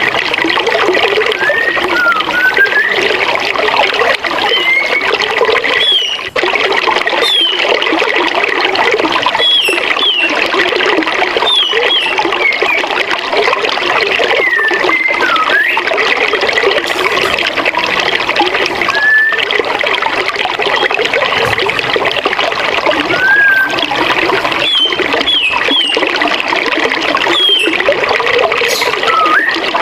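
Forest river rushing over a small waterfall, a steady wash of running water. Short chirping bird calls come and go throughout.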